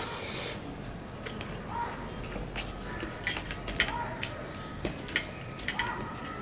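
Mouth sounds of eating rice and fish curry by hand: wet lip smacks and chewing clicks scattered throughout, with a short slurp at the start as the fingers go into the mouth. Between mouthfuls, fingers mix rice on a steel plate.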